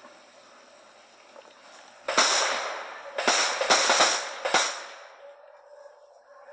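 Handgun fired about five times in quick succession, starting about two seconds in, each shot a sharp crack.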